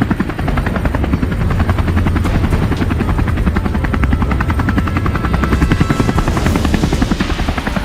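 Helicopter rotor chopping in a rapid, steady rhythm, with a heavy low drone.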